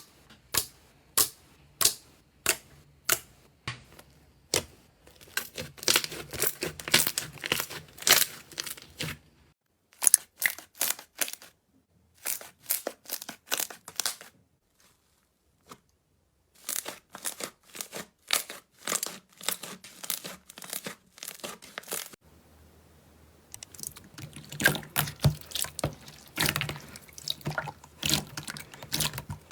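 Slime being pressed and worked by hand, giving sharp clicking pops, evenly spaced at first and then in dense crackling runs, with a few brief silent breaks.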